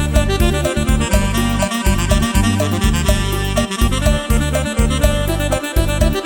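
Upbeat Isan lam phloen dance music played on an electronic keyboard, with a steady pulsing bass beat under a reedy synth melody.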